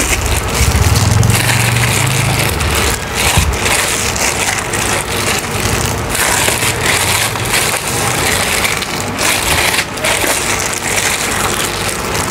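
Clear plastic bag crinkling and rustling as hands squeeze and knead tapioca dough through it, a dense run of crackles. A low rumble lies underneath for the first three seconds or so.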